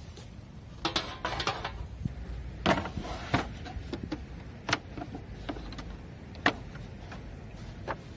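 A string of sharp clicks and knocks from an Iwatani Tough-maru Jr. stove's hard plastic carrying case being handled on a wooden shelf, its latches snapping open and the lid lifted.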